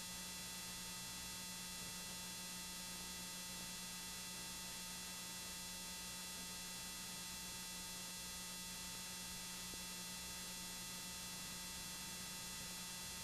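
Steady hiss and electrical hum with a thin buzz of fixed high tones: the line noise of a video transfer with no programme on it.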